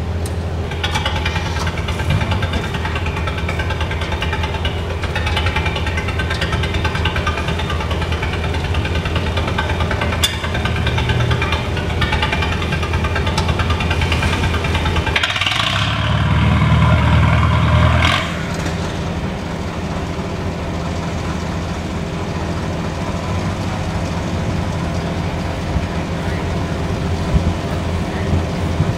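Tractor engines running steadily with a low hum. Past the middle a louder engine sound swells for a couple of seconds, then drops away suddenly.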